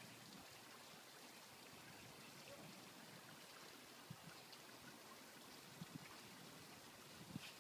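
Near silence: faint steady outdoor hiss, with a few soft, faint thumps in the second half.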